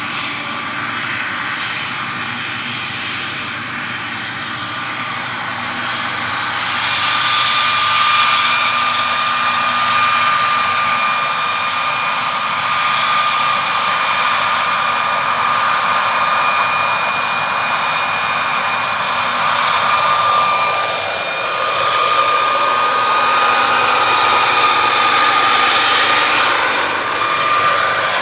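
Small gas turbine of a large radio-controlled scale Eurocopter EC135 model helicopter running with a steady high whine, over the rush of the main rotor. It grows louder about seven seconds in as the model lifts off and flies.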